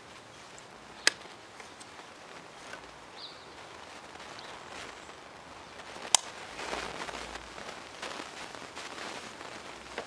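Hands working small parts into an FN PS90's polymer body: two sharp clicks, about a second in and about six seconds in, with quieter ticks and rustling handling between them.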